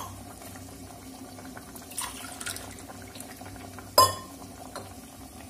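Water poured from a tumbler into a pressure cooker of dal and rice, with one sharp, ringing metal clink about four seconds in.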